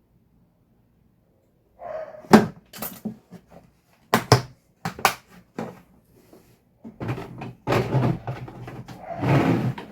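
Tools being handled and set down: a run of sharp knocks and clacks, then denser rattling and rustling in the last few seconds.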